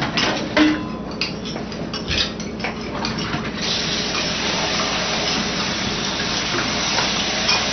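A steaming pot of boiled noodles tipped out into a plastic colander in a kitchen sink, with a few clanks. From about three and a half seconds in, the tap runs steadily as the noodles are rinsed under cold water to wash off the surface starch.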